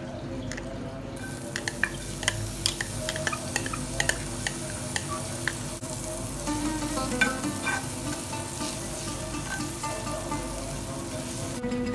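Chopped green chillies sizzling in hot olive oil in a frying pan. The sizzle starts about a second in, with many sharp crackles and pops, densest in the first few seconds after they hit the oil.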